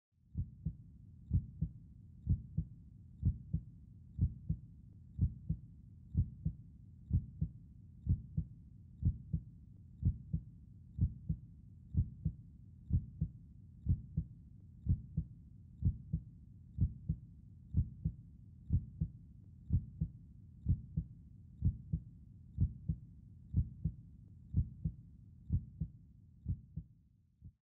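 Heartbeat sound effect: a steady lub-dub, a pair of low thumps about once a second, over a faint low rumble. It stops shortly before the end.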